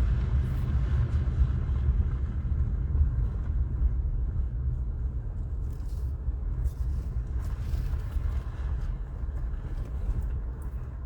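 Car driving slowly, heard from inside the cabin: a steady low road-and-engine rumble that grows gradually quieter toward the end.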